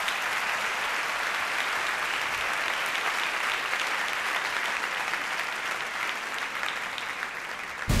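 A large auditorium audience applauding, a dense, steady clapping that eases slightly near the end.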